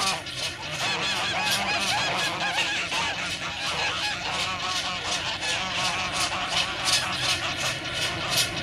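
A flock of white domestic geese honking repeatedly, many birds overlapping, over the regular chuffing of an approaching steam locomotive's exhaust that grows stronger toward the end.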